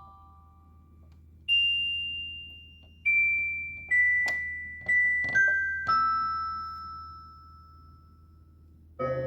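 Electronic keyboard playing slow, single high notes with a bell-like tone, each ringing and fading, stepping downward in pitch. A fuller, lower chord is struck near the end.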